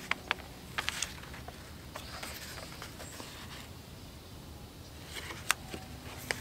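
Pages of a hardcover picture book being turned and handled: a few soft paper rustles and small clicks, several in the first second and a couple more near the end, over a faint steady low background hum.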